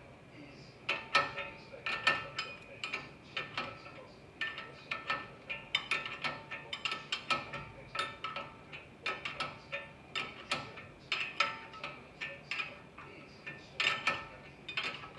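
Hand ratchet wrench clicking in short repeated strokes, sharp metallic clicks that ring slightly, starting about a second in.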